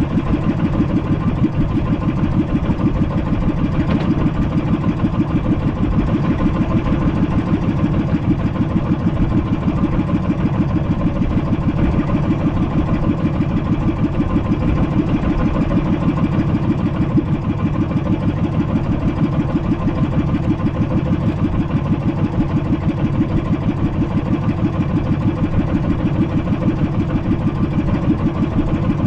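Small fishing boat's engine running steadily at constant speed, with a fast, even chugging pulse.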